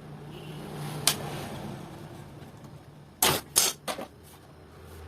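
A sharp click about a second in, then a quick cluster of short, loud clattering knocks a little after three seconds in, over a faint low hum.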